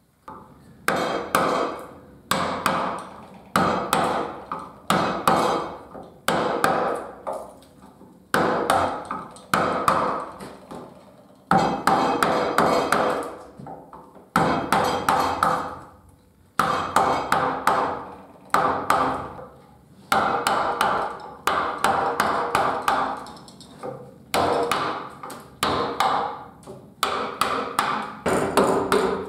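Mallet blows driving a carving gouge into a cherry-wood board: a steady series of sharp knocks, roughly one a second with occasional quick doubles, each ringing briefly through the wood.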